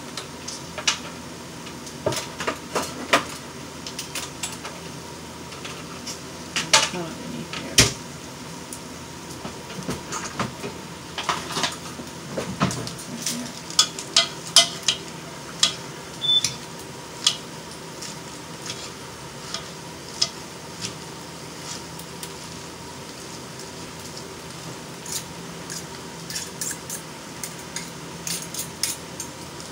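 A metal fork clinking and scraping against a bowl while mixing, in irregular sharp clicks, over a steady low background hum.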